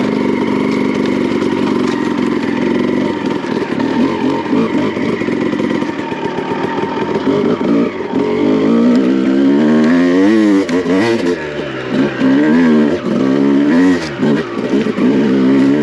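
2001 Honda CR250R two-stroke dirt bike engine under riding load. It runs fairly steadily at first, then from about halfway the revs swing up and down sharply several times as the throttle is blipped and rolled off.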